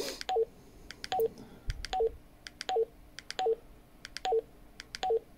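Baofeng BF-18H handheld radio beeping with each press of its menu arrow key while scrolling: about seven short two-note beeps, each a higher note dropping to a lower one, evenly spaced a little faster than one a second, with a light click of the key at each press.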